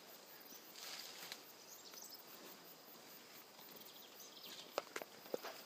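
Quiet rainforest background with a faint steady high insect note. Three sharp snaps come close together near the end.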